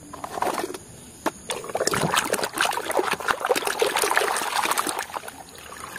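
Water sloshing and dribbling as a hand scrubs a mud-covered plastic toy in a basin of muddy, foamy water. It starts about a second and a half in and fades near the end.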